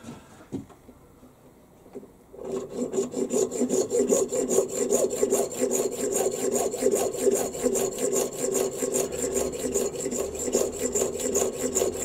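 Junior hacksaw cutting through a small brass slug with rapid, even back-and-forth strokes, starting about two and a half seconds in.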